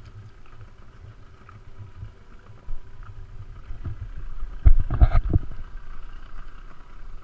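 Inflatable dinghy coming alongside a catamaran's stern, with a steady low rumble of wind and water. About five seconds in there is a quick cluster of knocks and thumps as the dinghy meets the hull and steps.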